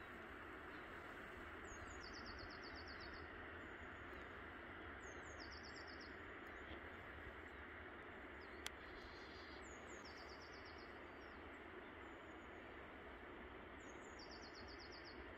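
Steady, quiet rush of river water. Over it a small songbird sings a short high phrase ending in a rapid trill, about every four seconds, four times. A single sharp click comes about two-thirds of the way through.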